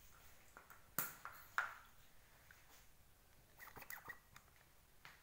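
Hand-held vacuum pump gun and plastic cupping cups clicking as a cup is fitted and pumped down onto the skin: two sharp clicks about a second in, then a quicker run of small clicks with a brief ring near the end.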